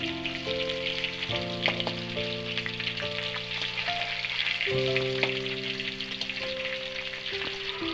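Koi (climbing perch) fish frying in hot oil in a wok: a steady, dense sizzle and crackle, with a few scrapes and taps of a metal spatula as the pieces are turned. Soft background music with long held notes plays underneath.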